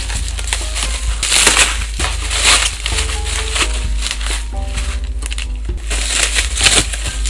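Bubble wrap and plastic packaging crinkling and rustling in uneven bursts as it is cut with scissors and pulled open by hand. Soft background music with held notes comes in about three seconds in.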